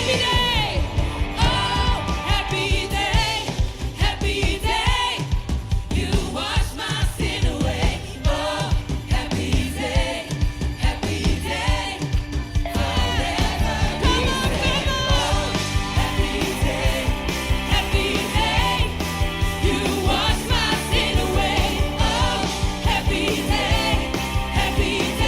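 Worship music: sung voices over a band with a steady beat and a strong bass line.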